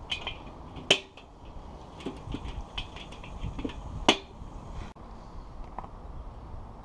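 The steel lid of a PRO-Q Excel 20 bullet smoker being handled and fitted: two sharp metallic clanks about three seconds apart, with lighter clicks and taps in between.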